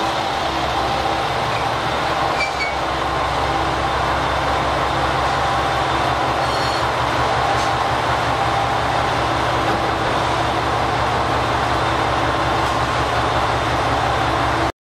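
JR Shikoku 2000 series diesel railcars with their diesel engines running steadily as the train rolls slowly along the platform and comes to a stand. A faint squeak is heard a couple of times.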